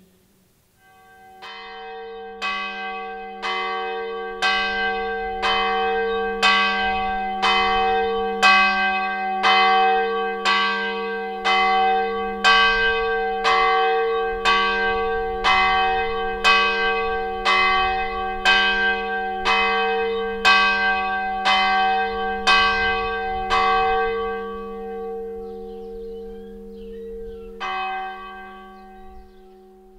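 A single church bell tolling at about one stroke a second, its low hum ringing on between strokes. The strokes die away near the end, followed by one last lone stroke.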